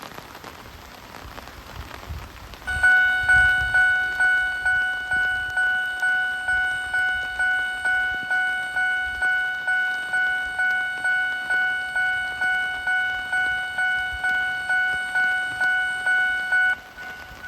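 Japanese level-crossing warning bell ringing at about two strikes a second with a clear, steady tone. It starts abruptly about three seconds in and stops suddenly near the end. This is the crossing whose bell is known for an odd, off-sounding changed tone.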